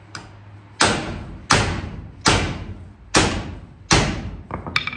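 Five hard metal blows, about one every 0.8 s, each ringing briefly, then a couple of quick lighter taps near the end: a bent caster on a laser machine's base being hammered back straight.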